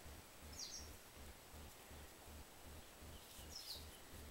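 Near silence: faint outdoor ambience with two short, high bird chirps, one about half a second in and one near the end.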